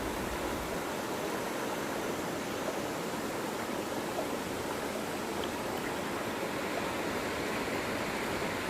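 Steady rush of flowing water, even and unbroken, with no surges.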